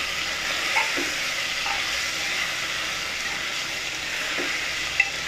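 Diced potatoes sizzling as they fry in oil in an open aluminium pressure cooker, stirred with a steel spoon. There is a steady hiss and a single sharp knock near the end.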